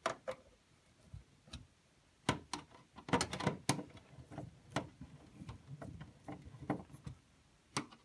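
Irregular clicks and light scraping of a flathead screwdriver snugging up screws on a circuit board mount, coming in small clusters with short pauses between turns.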